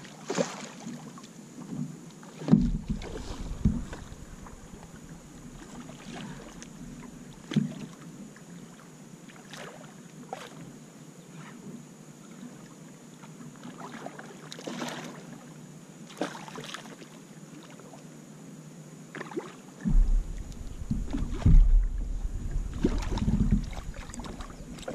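Scattered splashes and knocks on and around a plastic fishing kayak while a hooked redfish is fought at the surface beside it. A few loud low thumps come about three seconds in, and a stretch of low rumbling in the last few seconds.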